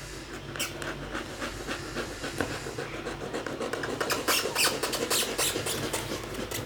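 Handwork on a leather saddle: a quick, irregular run of scratchy clicks and scrapes that grows denser and louder about four seconds in, over a steady low hum.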